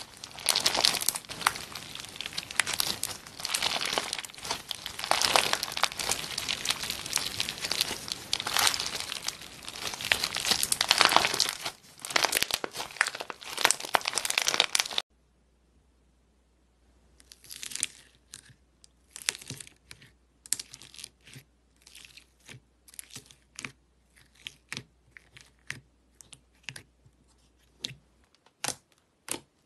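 Dense crackling and crinkling as a clear, gel-filled squishy ball packed with bumpy plastic beads is squeezed and kneaded by hand. After a cut about halfway through comes a short hush, then short crisp pops and clicks, towards the end about one a second, as white fluffy slime is pressed by hand.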